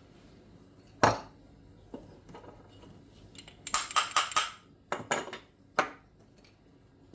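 Small metal utensils and espresso tools clinking and knocking as they are handled: one clink about a second in, a quick run of four near the middle, and a few more after.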